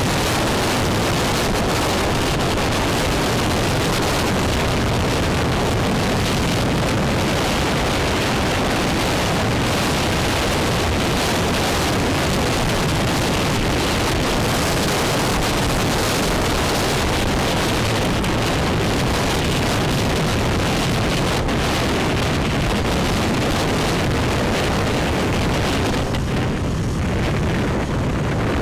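Steady, loud rush of wind buffeting the microphone on a moving motorbike, mixed with road noise. The hiss thins briefly near the end.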